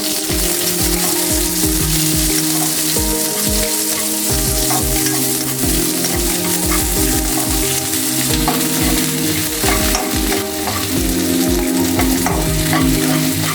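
Onion frying in hot oil in a kadai: a steady sizzle, with the scrape and knock of a spoon stirring it.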